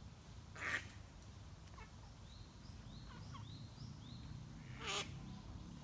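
A duck quacking: a loud harsh quack about a second in and another near the end, with fainter calls between them. A steady low rumble sits underneath, and thin high whistled notes come in the middle.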